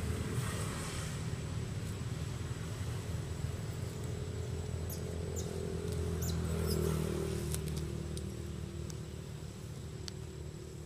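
A motor engine running, a low steady hum that swells about six to seven seconds in and then fades, with a few faint sharp clicks.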